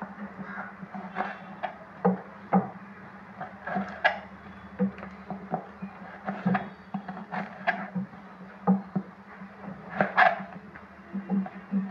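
Kitchen knife chopping onion against a red plastic tray: irregular sharp knocks of the blade, one or two a second, over a steady low hum.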